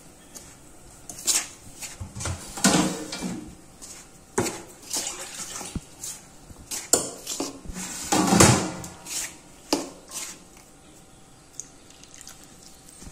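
A hand working a dry flour mix in a stainless steel bowl: irregular scraping, rustling and knocks of fingers against the steel, loudest about three and eight seconds in and quieter after about ten seconds. It is the dry mixing of thattai ingredients before water is added.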